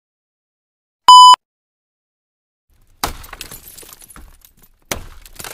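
A short electronic test-tone beep at a steady high pitch about a second in, over colour bars. After a pause, a logo-intro sound effect starts about three seconds in: a sudden crash with scattered clattering that fades, then a second crash near the end.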